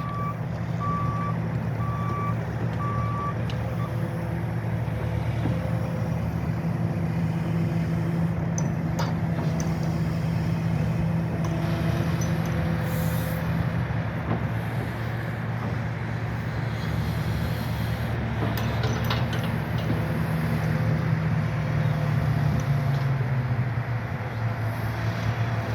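JCB JS260LR tracked excavator's diesel engine running steadily, its note dropping slightly near the end. A warning alarm beeps a few times, about once a second, at the start.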